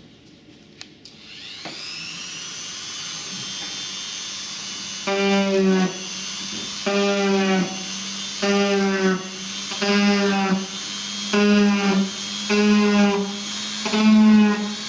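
Handheld rotary tool spinning up about a second and a half in, then running with a steady high whine. Its bit is pressed into the model's skin to cut scale rivet marks, giving a short buzz about every one and a half seconds, seven times.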